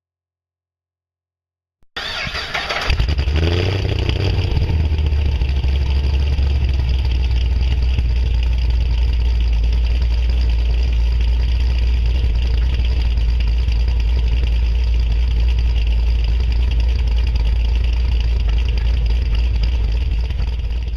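Cammed Pontiac G8 V8 with long-tube headers being started: about a second of starter cranking, then it catches with a brief rev flare and settles into a steady idle.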